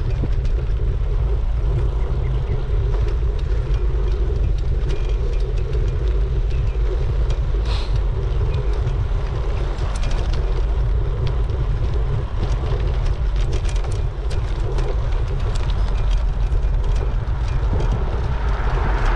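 Steady wind buffeting on a bike-mounted action camera's microphone while cycling, with tyre and road noise and scattered small clicks and rattles.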